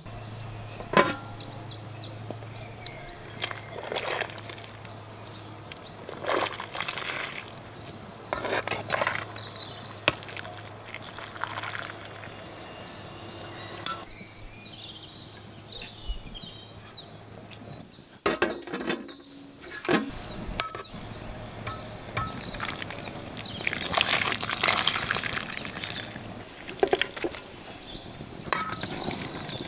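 A bird chirping rapidly and almost without pause, with scattered knocks, scrapes and clatters of metal cookware, among them a metal ladle working in an aluminium pot of steaming cooked eggplants. A low steady hum underlies the first half.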